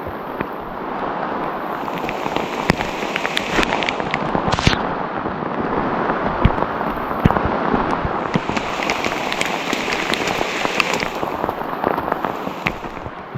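Soaking rain falling steadily, with frequent sharp taps of drops striking close by.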